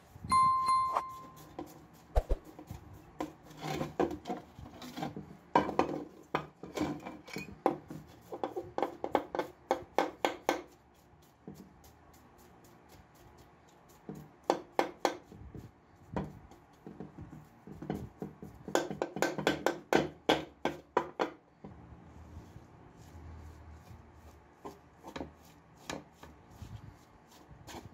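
Bristle paintbrush scrubbing paint-stripper-softened black lacquer off a metal lamp shade, in rapid rasping strokes that come in bursts with pauses between them, lifting the bubbled paint away.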